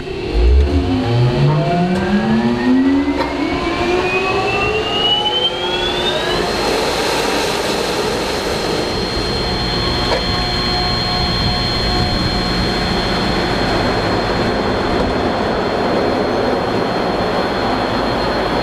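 A large flood-water pump rated at about 70,000 gallons a minute starting up after being switched on. Its motor winds up in a rising whine over about six seconds, then settles into a steady running drone with a high whine on top.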